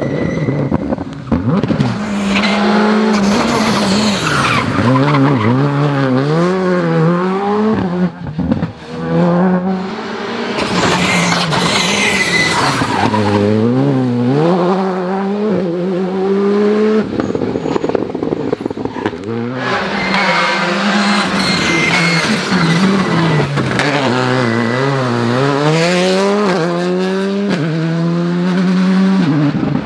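Rally cars, Škoda Fabia R5s among them, passing one after another, their engines revving hard up and down through gear changes into and out of corners, with short tyre squeals.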